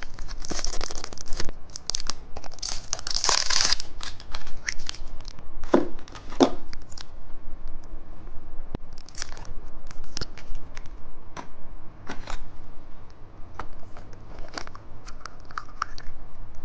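Plastic wrapping of a rocket-shaped jelly candy being torn and crinkled open. The rustling is densest in the first few seconds, then gives way to scattered clicks and crackles of handled packaging.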